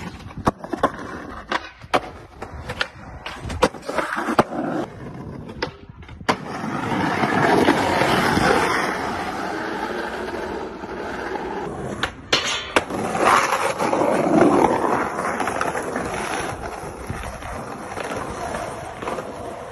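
Skateboard sounds: a quick run of sharp clacks and knocks from the board popping, landing and hitting a rail, then, after a cut about six seconds in, skateboard wheels rolling fast on asphalt, a rough steady rumble that swells and fades, with a few clacks along the way.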